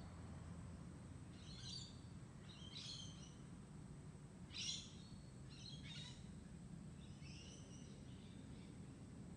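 Birds calling faintly, in about six short bursts of chirps a second or so apart, the loudest about halfway through, over a steady low background hum.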